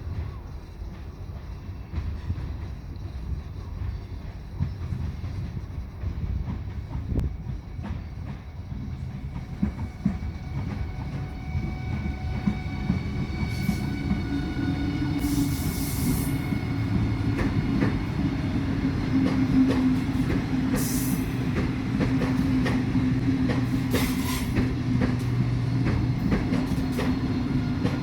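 Train on the move, its wheels knocking repeatedly over rail joints. It grows louder with a steady low hum from about halfway, and there are a few brief high hissing bursts in the second half.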